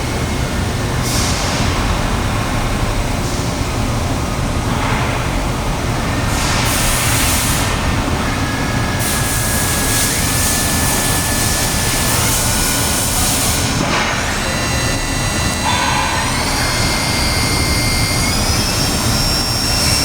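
Steady machine-shop machinery noise with stretches of loud hissing, like an air blast. About two-thirds of the way in, a whine comes in, rises in pitch, holds, then falls away near the end.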